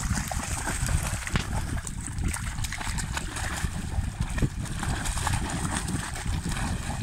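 Cane corso puppies and an adult dog wading through shallow river water, a run of irregular small splashes and sloshes.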